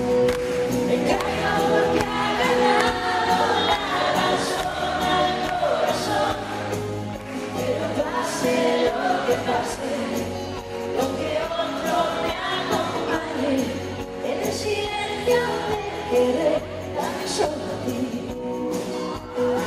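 Live band performing a ballad, with a male and a female singer singing a duet over the band.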